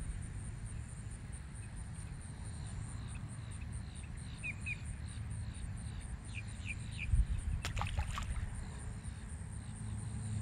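Outdoor ambience by a lake: a steady low rumble of wind on the microphone, a continuous high insect trill, and short high chirps through the middle; a few sharp clicks about eight seconds in.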